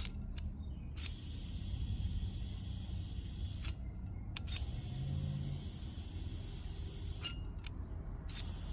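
Air hissing through a digital tire-inflator chuck into a tire, cut off three times with a click as the trigger is released and squeezed again, over a low steady rumble.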